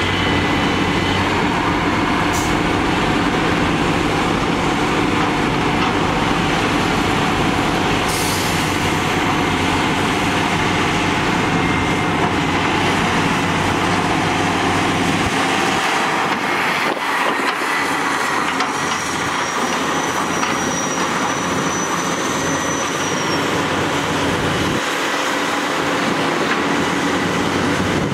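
Large Hitachi hydraulic excavators' diesel engines working under load while digging and loading soil, a steady heavy mechanical din with thin high squeals coming and going. The deep rumble thins out about halfway through and again near the end.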